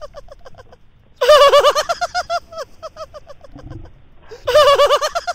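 Looped comic laughter sound effect, high-pitched: a loud burst of laughter about a second in and again near the end, each trailing off into short quick pulses.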